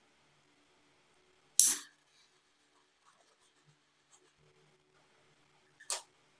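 A small butane torch lighter being clicked: a loud sharp click that fades quickly about one and a half seconds in, and a second, softer one near the end, with faint handling ticks of the wires in between.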